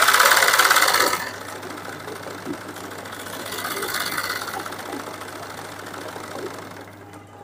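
Sewing machine stitching fast for hand-guided machine embroidery, the needle running a satin-stitch fill through hooped fabric. Loudest in the first second, it eases off, picks up again in the middle and stops near the end, where the thread has broken.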